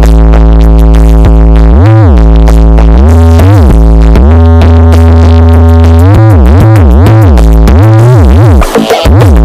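Loud electronic music with heavy synth bass, played through a carnival sound system under test: long held bass notes, then from about six seconds in the bass swoops up and down in pitch several times, with a brief dip near the end.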